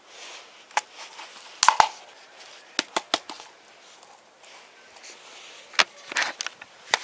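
Rigid plastic bottle pot crackling and clicking as it is squeezed and handled to free a seedling's root ball, in scattered sharp clicks, the loudest a couple of seconds in and another cluster near the end.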